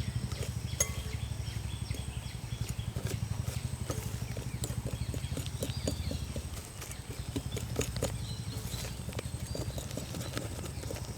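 Hand whisk beating madeleine batter in a mixing bowl: a fast, steady rhythm of strokes with small clicks of the wires against the bowl, as flour and yeast are worked into the egg-and-sugar mixture to smooth out lumps.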